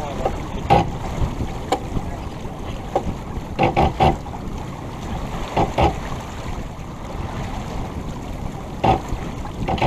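Wind on the microphone and water rushing along the hull of a sailboat under way, with short, irregular louder splashes or knocks every second or two.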